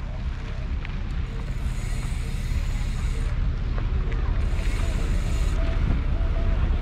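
Motorcycle riding: engine rumble mixed with wind noise on the microphone, growing louder.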